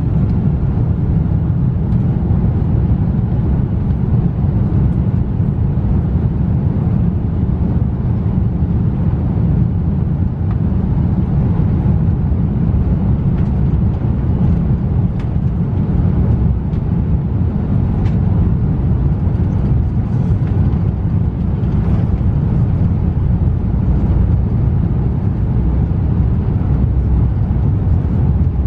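Cabin noise of an Airbus A330-300 airliner rolling on the ground before takeoff: a steady, loud, low rumble of engines and wheels, with a few faint clicks.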